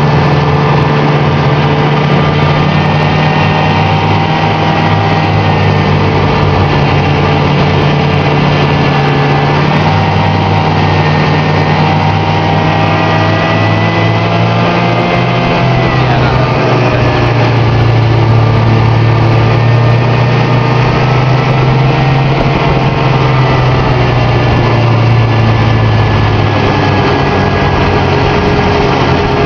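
Snowmobile engine running under way, heard from the rider's seat: loud and steady, its pitch dropping sharply about halfway through before levelling out again.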